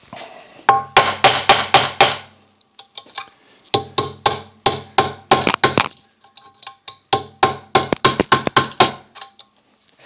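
A hand hammer strikes small metal parts in three quick runs of blows, about four or five a second. Each blow leaves a short metallic ring. The parts are being knocked to work them loose.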